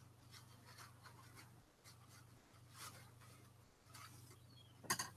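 Faint scratchy rubbing and rustling of a small paint brush being handled and its bristles checked, over a low steady hum, with a short sharp click near the end.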